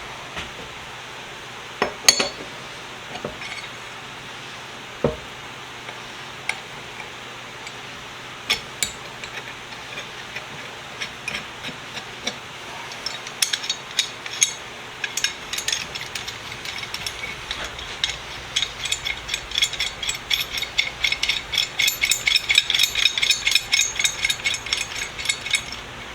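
Handling a metal pipe wrench: scattered sharp clicks and clinks, then a quickening run of small rapid ticks that grows louder over the last ten seconds.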